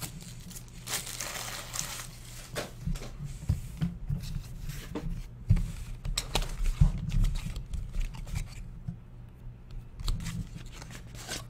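Crinkling and tearing of a trading-card pack's foil wrapper, then a small cardboard card box being handled and opened, with scattered rustles and light taps.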